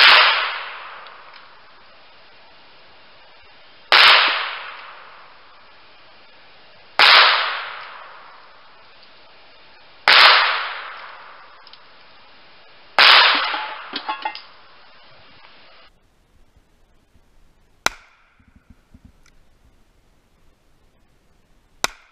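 Seven single shots from a High Standard .22 rimfire convertible revolver. The first five are heard from beside the targets, about three to four seconds apart, each a sharp crack that trails off over a second or more, with a few faint ticks after the fifth. Then come two shorter, sharper cracks from the shooter's own position, about four seconds apart.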